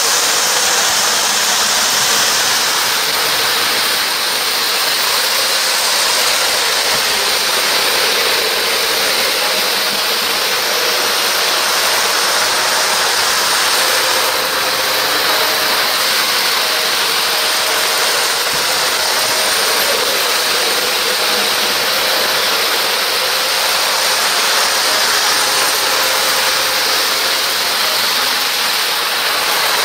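Model electric trains running on the layout's track: a steady whirring rumble of wheels and motors that does not let up.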